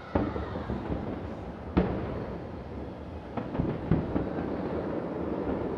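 Distant aerial fireworks going off: several sharp bangs, the loudest about two seconds in, over a continuous low rumble of bursts.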